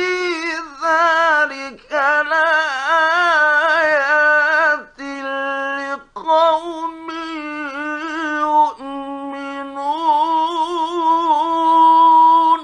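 A man reciting the Quran in the ornamented mujawwad style, holding long melodic notes in a high voice, in phrases with brief breaks for breath. The recitation stops sharply at the very end.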